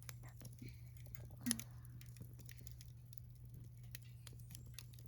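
Wood fire crackling with scattered small pops in a Uniflame Nature Stove Large fire stand, with one louder knock about one and a half seconds in, over a faint steady low hum.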